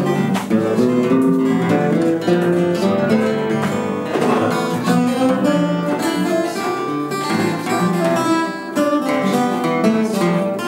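Acoustic guitar picked note by note, running the C major scale (do-re-mi) in the open position within the first three frets, in a quick, steady flow of single notes that ring into one another. It is played as a practice pattern, three notes at a time.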